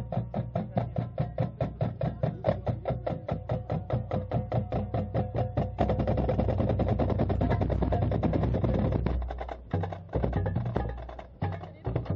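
Marching band drum line of snare and bass drums playing a fast, even cadence close by. About six seconds in the strokes thicken into a denser, continuous roll, then the drumming fades as the band moves off.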